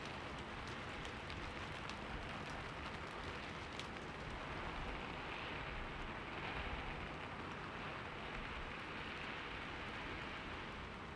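Steady rainfall: an even hiss of rain with scattered drops ticking on a surface.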